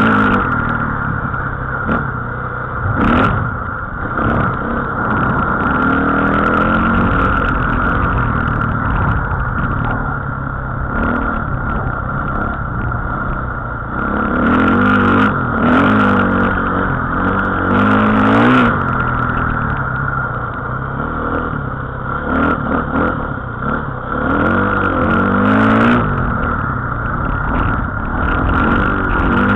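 Dirt bike engine revving up and falling back again and again as it rides over rough, bumpy ground. A steady high whine runs underneath, with scattered rattles and knocks.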